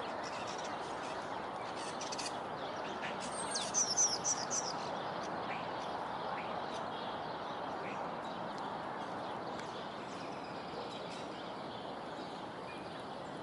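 Steady outdoor background noise, with a bird giving a quick run of short high-pitched chirps about four seconds in.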